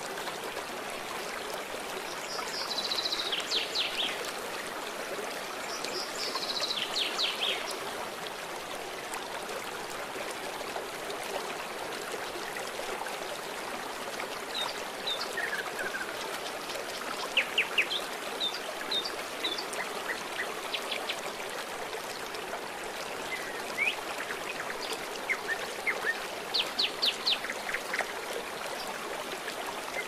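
A shallow river rushing steadily over a stony bed. Birds call over it: falling trills about two and six seconds in, scattered chirps in the middle, and a quick run of notes near the end.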